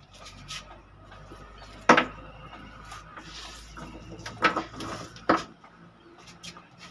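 A few sharp clattering knocks, the loudest about two seconds in and two more near the middle, over the faint ticking of a freshly oiled old pendulum wall clock, now running again.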